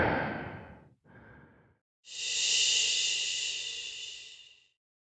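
A heavy exhale that fades over about a second, then a fainter breath. About two seconds in a longer high hiss with a few steady tones running through it begins, and it fades out near the end.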